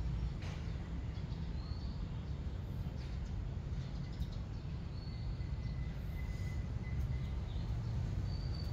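Outdoor ambience: a steady low rumble with a few short, high bird chirps and whistles scattered through it.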